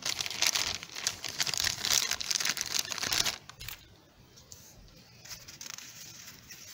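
Clear plastic bag crinkling as paper pieces are pulled out of it, dense and crackly for about three seconds. After that come fainter rustles of the paper pieces being handled.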